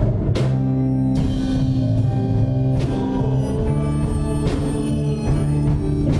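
Church praise band playing a worship song: electric guitar, keyboards and drum kit, with sustained notes and regular cymbal hits.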